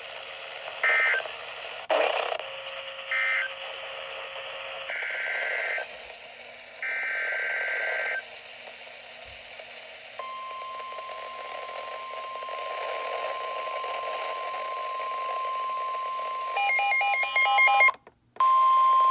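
Weather radio alert signalling: a few short warbling two-tone SAME data bursts, then the steady 1050 Hz warning alarm tone that announces a new warning. Near the end a loud burst of rapid beeping sounds over the tone, the audio cuts out briefly, and the tone comes back louder. Radio hiss runs underneath.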